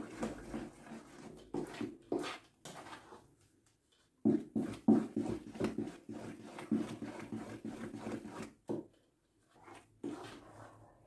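Wooden spoon stirring and beating thick cornmeal cake batter in a large bowl: irregular strokes, with the spoon knocking and scraping against the bowl. The strokes pause briefly about three seconds in and again about nine seconds in.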